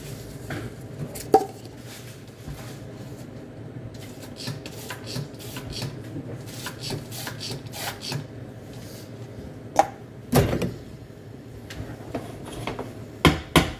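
Cups, dishes and utensils clinking and knocking while coffee is being made: scattered clicks, with louder clatters about a second in, around ten seconds in and near the end, over a steady low hum.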